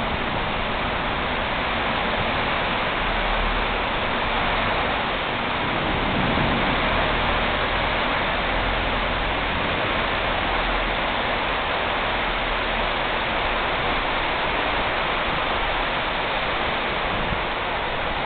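Heavy rain falling steadily in a downpour, heard as a constant even hiss.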